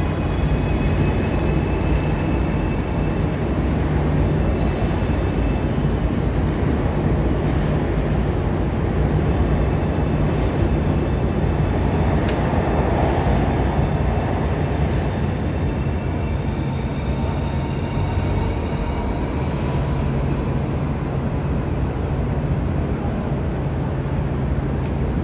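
Renfe Cercanías electric commuter train humming at the platform: a steady low drone with faint high-pitched whines from its onboard equipment.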